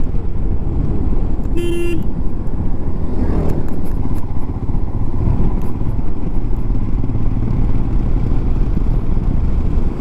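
Motorcycle engine running steadily on the road, with a short vehicle horn toot about two seconds in.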